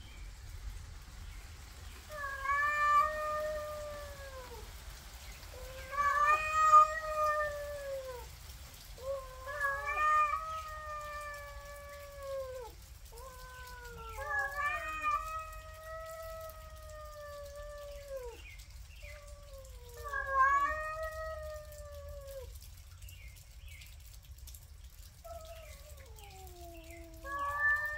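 Two cats, a gray tabby and an orange cat, in a standoff and caterwauling at each other. Each long, drawn-out yowl rises and then falls in pitch, and they come every three to four seconds, some of them overlapping.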